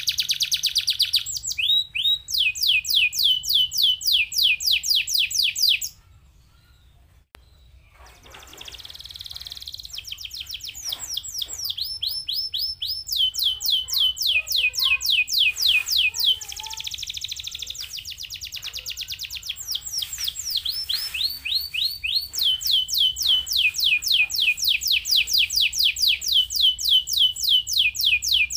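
Domestic canary singing: long rapid trills of quickly repeated high sweeping notes, changing to a new note type every few seconds. The song breaks off about six seconds in, starts again softly about two seconds later and builds back to full strength.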